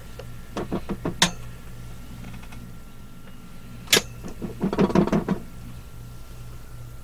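Handling noises from a plastic hand mirror and makeup being moved about close to the microphone: a few clicks near the start, one sharp click about four seconds in, then a quick run of small taps, over a steady low hum.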